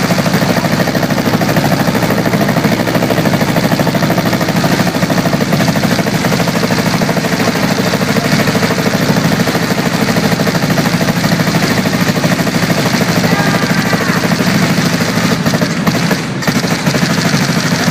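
A 5000-round-per-minute paintball gun firing one continuous burst, its shots so fast they merge into a dense, unbroken rattle that stops abruptly near the end.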